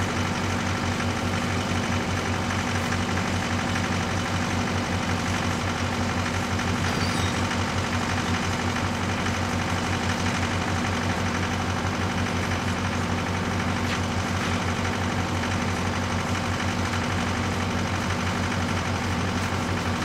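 Mini excavator's engine idling steadily, an even low hum.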